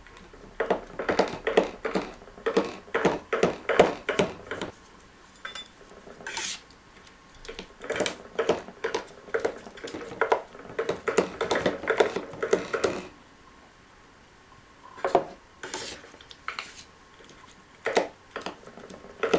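Knife blade chopping through soft clay and striking the board beneath, in a run of quick, uneven strokes, then a pause of a couple of seconds and a few more chops near the end.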